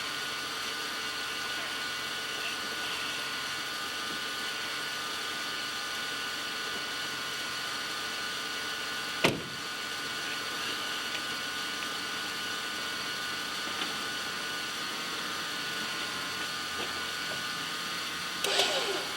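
A steady motor hum with several held tones, broken once by a sharp bang about nine seconds in.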